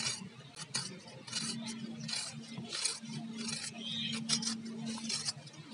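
Small onions being sliced by hand against an aruvamanai, the upright curved iron blade: a string of short slicing strokes at irregular intervals.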